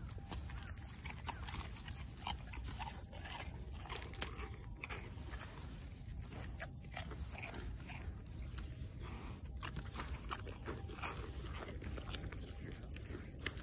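Sika deer biting and chewing deer crackers (shika senbei) close to the microphone: a run of irregular dry crunches and nibbling sounds.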